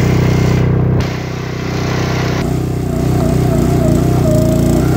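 Small gas engine of a Huskee 28-ton log splitter running steadily, with a higher wavering whine joining about halfway through.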